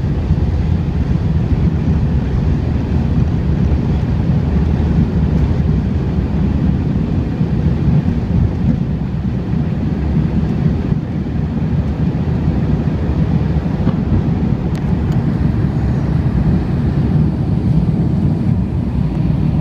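Cabin noise of an Airbus A350-900 during takeoff: the Rolls-Royce Trent XWB engines at high thrust and the airflow together make a loud, steady, low rumble.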